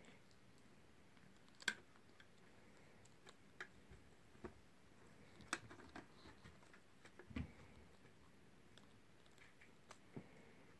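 Near silence broken by scattered faint clicks and taps, with a few louder ones about 1.7 and 5.5 seconds in and a soft thud near the middle: pets moving about and playing with a toy mouse.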